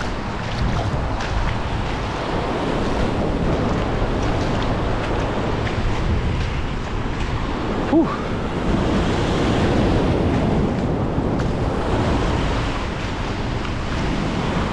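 Surf breaking and washing across a shallow reef flat, with water sloshing around wading legs and wind buffeting the microphone. A single short click about eight seconds in.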